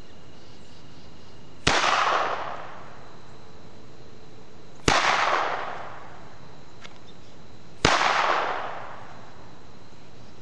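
Three shots from a Walther P22 .22 LR semi-automatic pistol, about three seconds apart, each followed by a short echo that dies away within a second.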